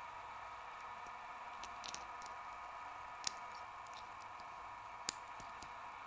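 Steel lock pick clicking and scratching in the keyway of an old brass padlock while probing for the shackle bypass: a few sharp clicks, the two loudest about halfway through and near the end, over a steady faint hiss.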